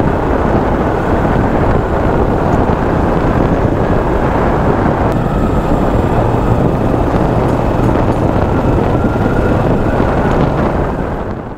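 Riding noise on a motorcycle at around 45 km/h: wind rushing over the microphone with the bike's engine running steadily underneath. It fades out near the end.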